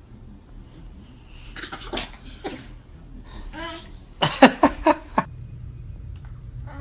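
A quick run of four or five sneezes, about four seconds in and lasting about a second, after a few fainter snuffles.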